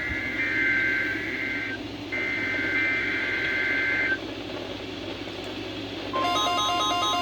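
Emergency Alert System SAME header data bursts: a harsh two-tone digital warble, two bursts of about two seconds each with a short gap, over a low hum and hiss. About six seconds in, an electronic tone pattern starts, a steady tone with short stepped beeps above it.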